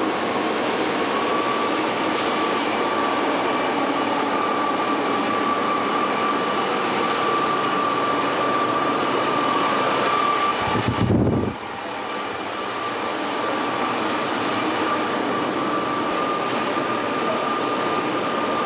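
Steady factory machine noise with a sustained high whine. About eleven seconds in, a short low rumble sounds, then the level drops sharply and builds back up.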